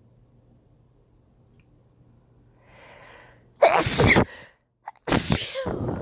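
A person sneezing twice in quick succession, after a soft in-breath, each sneeze a loud, sudden burst.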